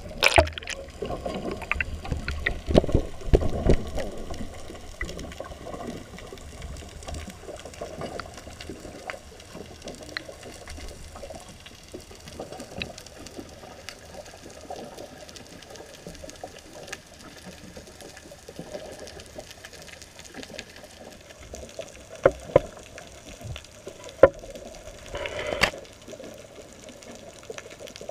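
Muffled underwater sound picked up by a GoPro in its waterproof housing as it is lowered on a fishing rod: a rush of bubbles and knocks in the first few seconds, then a steady low hiss with scattered clicks. A few sharp clicks and a short louder burst come near the end.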